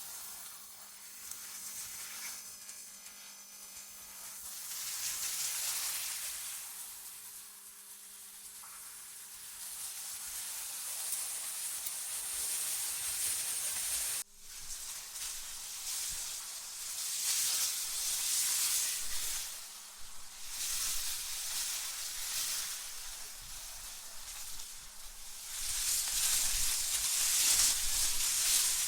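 Hissing wind that swells and fades in slow gusts, mostly high in pitch. It cuts out for an instant about halfway through.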